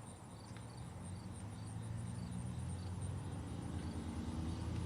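Crickets chirping in a steady, regular pattern, with a low engine hum underneath that grows louder.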